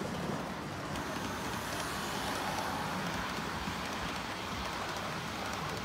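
HO-scale model train running along the layout track: steady noise of its wheels rolling on the rails and the locomotive's motor.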